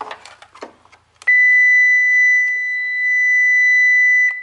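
Electrical circuit tester beeping with one steady high tone for about three seconds, starting a little over a second in after a few clicks of the probes being set in place. The beep signals continuity to positive on the wiring of the crankshaft position sensor circuit being traced for fault code P0335.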